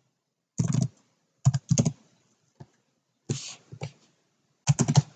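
Typing on a computer keyboard: about five short runs of keystrokes with pauses between them.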